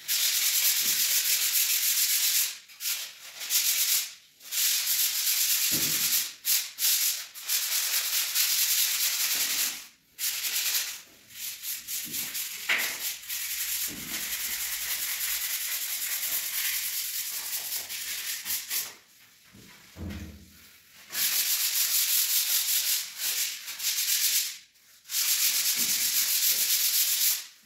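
Sandpaper scratching over dried wall putty on a ceiling, a steady rasping hiss in long runs of rapid strokes. It is broken by brief pauses and one longer pause about two-thirds of the way through.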